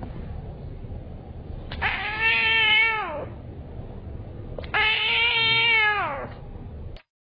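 Orange kitten meowing twice, two long meows a couple of seconds apart, each falling in pitch at the end.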